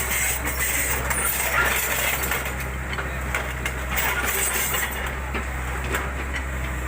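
Diesel engine of a JCB backhoe loader running steadily, with scattered knocks and clatter over it.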